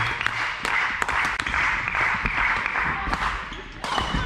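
Audience applauding, a dense patter of many hands clapping that dies down about three and a half seconds in.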